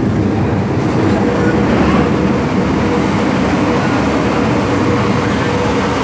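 MTR Kwun Tong Line M-train running at speed, heard from inside the carriage: a steady rushing rumble of wheels on rail with a low hum under it.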